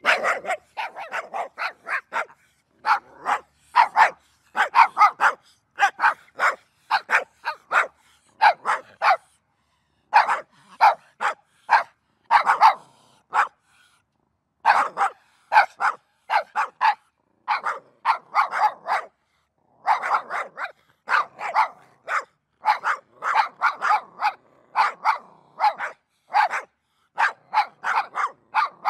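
A dog barking over and over in quick runs of short, sharp barks, with pauses of about a second between the runs.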